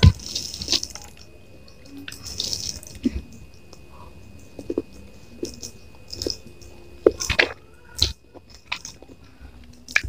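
Close-miked wet mouth sounds of eating mie goreng with rice and chicken: chewing with scattered sharp lip smacks and clicks, and two short hissing sounds near the start.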